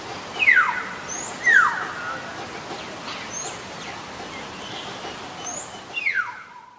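Bird calls: whistles that slide steeply downward, two about half a second and a second and a half in and a third near the end, with faint short high chirps about every two seconds over a steady hiss. The sound cuts off suddenly at the end.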